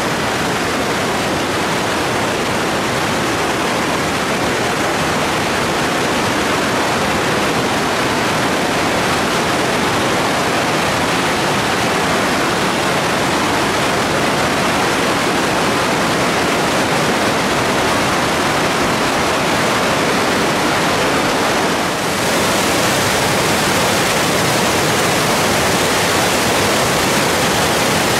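Glacier-fed meltwater rushing in a waterfall and white-water river rapids: a loud, steady rush of water. About three-quarters of the way through there is a brief dip, after which the rush is slightly brighter.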